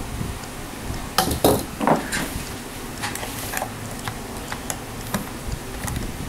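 Guitar strings and Floyd Rose floating-bridge hardware being handled by hand: light metallic clicks and clinks as the strings are seated in the bridge saddles, with three louder knocks between one and two seconds in.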